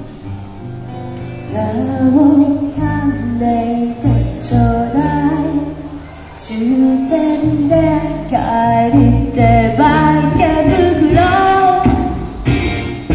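Live song: a woman's voice singing a melody over guitar accompaniment, the voice coming in about a second and a half in.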